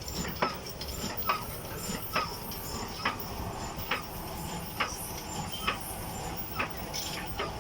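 Rhythmic knocking at the forge, one sharp knock a little under once a second, over a steady low rush.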